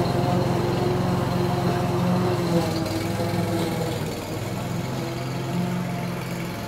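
Briggs & Stratton four-stroke engine on a radio-controlled lawn mower running steadily as the mower drives through long grass, a little quieter in the second half.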